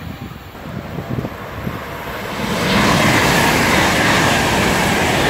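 A low, gusty rumble at first. Then, about two and a half seconds in, the loud, steady rush of an ICE high-speed train passing close at speed.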